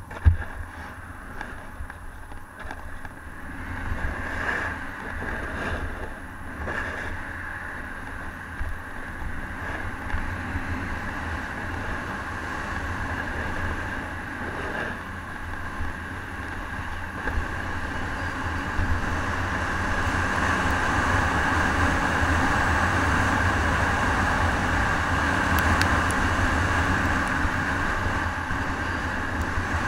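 Snowboard sliding and scraping over packed snow on a descent, with wind rumbling on the action camera's microphone. The rush grows louder past the middle, and there is one sharp knock right at the start.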